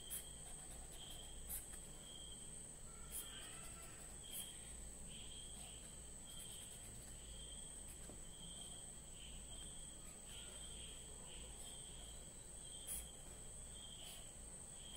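Faint, quiet background with an insect chirping in short high chirps repeated about every half second, over a steady high-pitched whine. A few soft clicks, the clearest near the start, about three seconds in and near the end.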